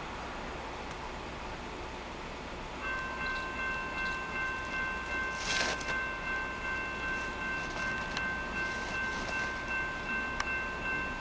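Horn of an oncoming freight train's lead locomotive, a BNSF SD70MAC: a steady chord of several tones that starts suddenly about three seconds in and is held to the end, swelling and dipping slightly.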